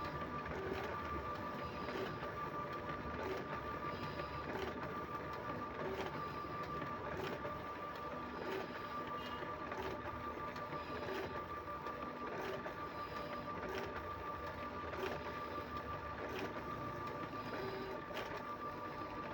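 Kyocera photocopier running while scanning documents, with a steady whine and a regular click about every second and a quarter.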